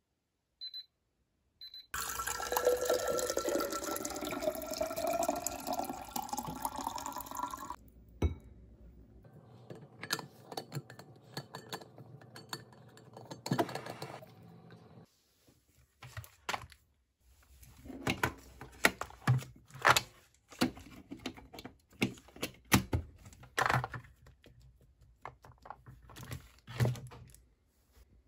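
A couple of short electronic alarm-clock beeps, then water running from a dispenser into a cup for about six seconds, the pitch rising steadily as the cup fills. After that come scattered clicks and light knocks of handling.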